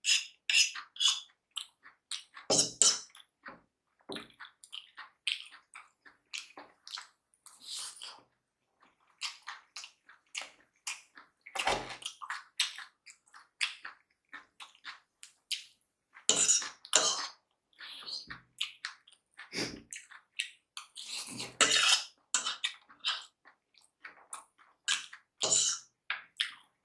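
Close-miked eating of chowmein noodles: wet slurps and chewing in short, irregular bursts.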